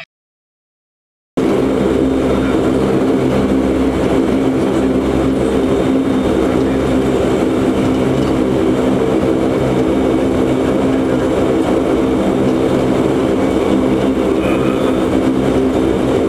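After about a second and a half of silence, the four Allison 501 turboprop engines of a Lockheed L-188 Electra start in abruptly and run as a loud, steady propeller drone, heard from inside the cockpit.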